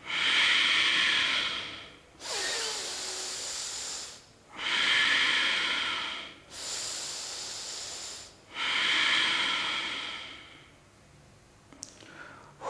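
A man's slow, deep yogic breathing through the nose: three full breath cycles, each a louder breath of about two seconds followed by a softer one, with the breaths fading out near the end.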